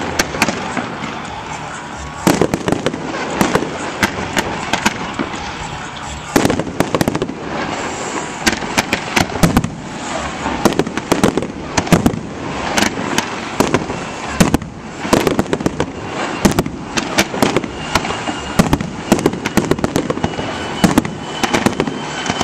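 Fireworks display: aerial shells bursting in a rapid, irregular run of bangs and crackles.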